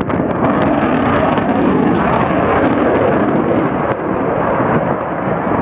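Loud, steady jet noise of a Eurofighter Typhoon's twin EJ200 turbofan engines in flight, a dense rushing rumble that holds without a break.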